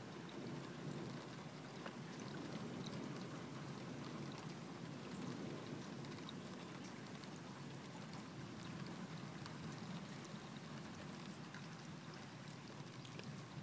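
Steady rain falling in a thunderstorm, with scattered single drops ticking through the steady patter.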